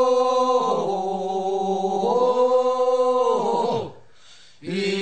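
Korean funeral bier-bearers' song (sangyeo-sori), chanted unaccompanied: two long drawn-out sung vowels, each stepping down in pitch partway and trailing off, then a short break before the chant starts again near the end.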